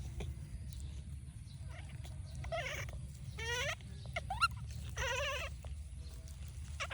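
Baby monkey calling: about four short, wavering high-pitched cries, one after another, over a steady low hum.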